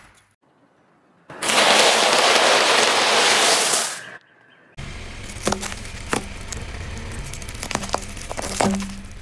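A car tyre rolling over and crushing candy packets and crunchy snacks: a loud, continuous crunching for about two and a half seconds, then, after a short pause, a run of crackling with several sharp cracks and pops.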